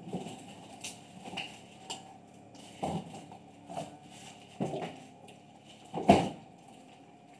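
Cats eating from a plastic tray on the floor: irregular clicks and knocks of eating and the tray being nudged, about one every second, the loudest about six seconds in.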